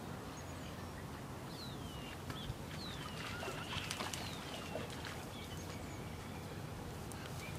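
Birds calling: a few short, falling whistled calls, most of them about one and a half to four and a half seconds in, over a steady low background rumble.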